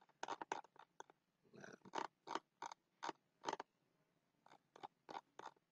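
Computer mouse clicking and scrolling: a run of faint, sharp, irregular clicks, some in quick clusters and others spaced a few tenths of a second apart.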